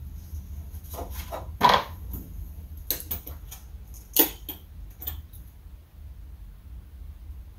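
A handful of light clicks and knocks, two of them sharper and louder, as fiber is handled and loaded into a fusion splicer's clamps, over a steady low hum.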